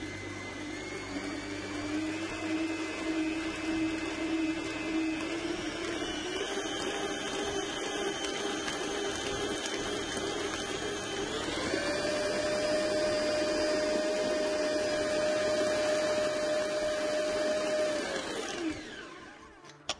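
Electric stand mixer motor running while it mixes pancake batter. Its whine steps up in pitch a few times as the speed is raised, then winds down and stops near the end.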